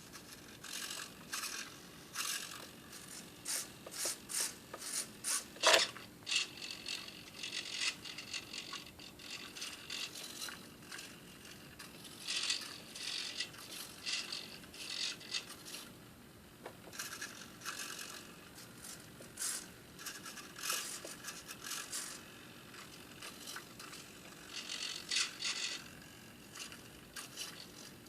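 Hobby servo motors driving a 3D-printed plastic robotic arm, whirring and grinding in many short spells as its joints move, stop and move again. One louder knock comes about six seconds in.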